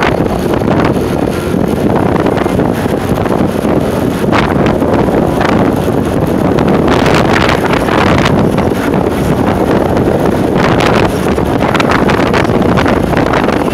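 Wind rushing over the microphone of a camera on a moving motorcycle: a loud, steady rush of wind and road noise with brief louder gusts.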